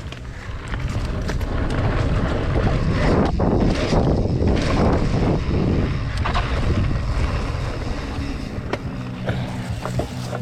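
Mountain bike rolling over a dirt trail, with tyre noise and wind on the microphone. The noise builds about a second in as speed picks up, is loudest in the middle, and carries scattered clicks and rattles.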